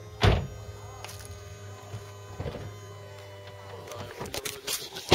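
A convertible's power folding roof in motion: its motor runs with a steady hum and whine, then stops about four seconds in. A sharp clunk comes just after the start.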